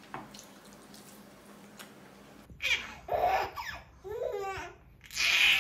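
A baby laughing and squealing in several short bursts, starting about halfway in.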